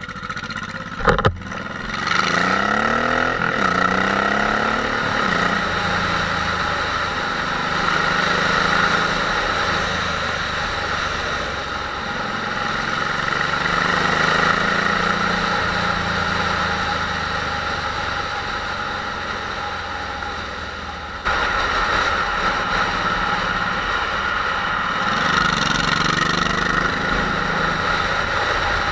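Honda VTX 1800's big V-twin engine pulling away and accelerating, its pitch rising a couple of seconds in, then running steadily under way with road and wind noise. The sound jumps louder about two-thirds of the way through, and the revs rise again near the end.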